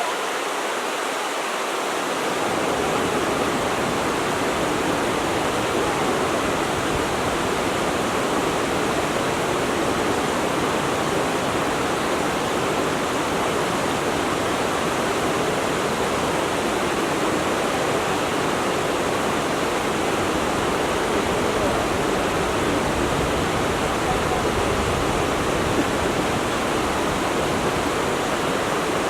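Steady rush of a flowing water stream, an even unbroken babble and hiss.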